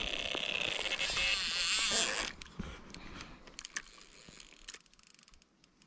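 Fishing reel on a carp rod being handled as a fish takes: a loud rush of noise for the first two seconds or so, then the reel's mechanism ratcheting and clicking, quieter, as it is worked.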